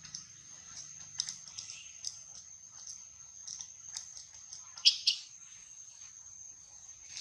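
Short, high-pitched animal chirps scattered through a few seconds, the two loudest coming in quick succession about five seconds in, over a steady high-pitched whine.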